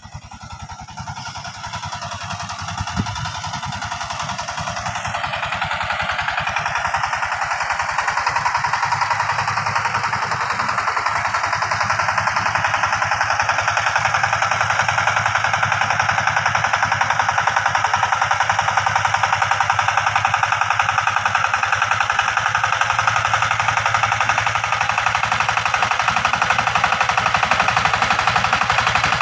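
Two-wheel power tiller's single-cylinder diesel engine running with a rapid, even knocking beat as it hauls a trolley loaded with sacks. It grows louder over the first several seconds as it comes closer, then holds steady.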